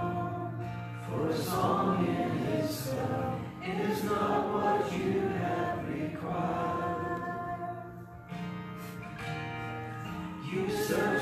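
A woman singing a worship song solo into a microphone, holding long notes, over instrumental accompaniment.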